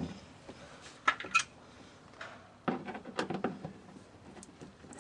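Sharp clicks and light knocks of a screw and a plastic splash guard being handled and fitted at the wheel arch: two sharp clicks about a second in, then a run of small rattling knocks around the middle.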